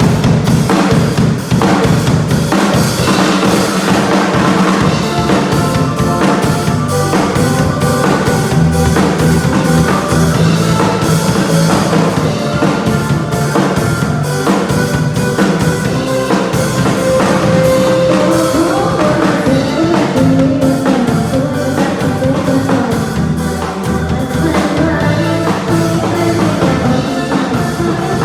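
A band playing music with a drum kit keeping a steady beat under bass and other pitched instruments.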